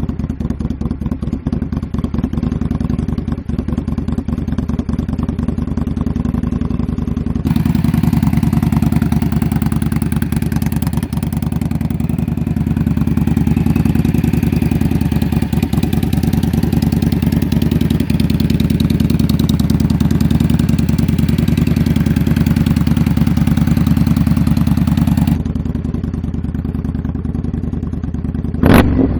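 2018 Indian Scout Bobber's 1133 cc V-twin running through a Freedom Performance Combat 2-into-1 exhaust, idling with a steady beat. The tone changes abruptly about seven seconds in and changes back near the end, and a short loud burst comes just before the end.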